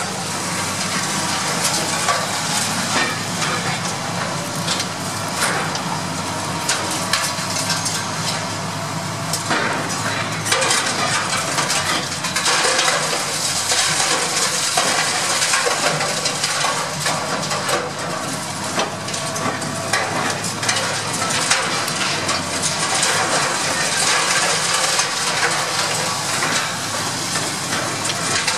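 High-reach demolition excavator crushing the concrete walls of a grain silo: a continuous crackle and clatter of breaking concrete and falling rubble over the machine's steady engine drone.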